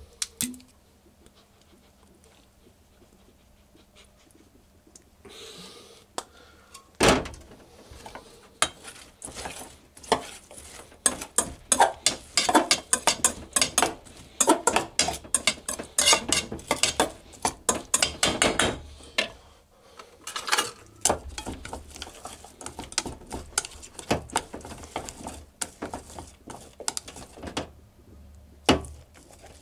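Wooden spatula stirring and tossing chopped broccoli in a stainless steel bowl: rapid scraping and clacking against the metal that starts a few seconds in, with a sharp knock about seven seconds in and another near the end.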